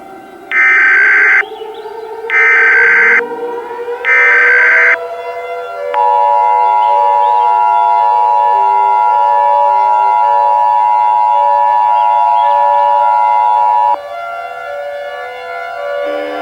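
Emergency Alert System SAME header: three one-second bursts of digital data tones, followed by the two-tone EAS attention signal held steady for about eight seconds. Underneath, a siren winds up, rising in pitch, and keeps sounding after the attention tone cuts off.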